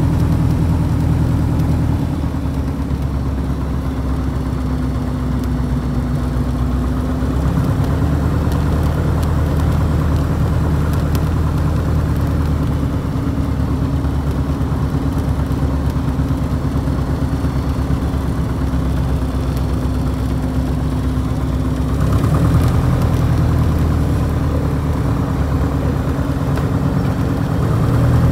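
Piper Super Cub's piston engine and propeller running at low power, heard from inside the cabin while taxiing on grass. The engine note drops a little about two seconds in, picks up again a few seconds later, and rises for a few seconds about three-quarters of the way through.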